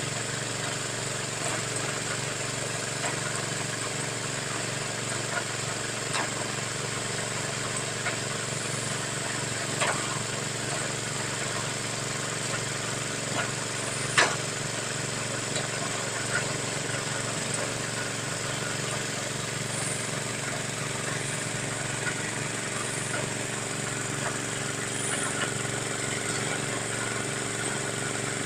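Engine of a well-drilling machine running steadily, with a few sharp knocks, the loudest about halfway through.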